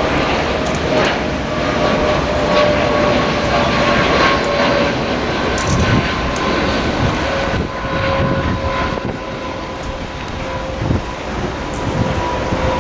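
Boeing 787 Dreamliner's GE turbofan engines at climb power as it flies past and away: a loud, steady jet roar with a whine that slowly drifts down in pitch.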